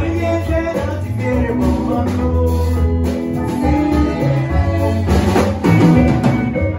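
Live highlife band playing: electric guitar, drum kit and congas over a deep bass line, with a horn section of saxophones, trombones and tuba. The band gets louder and fuller about five seconds in.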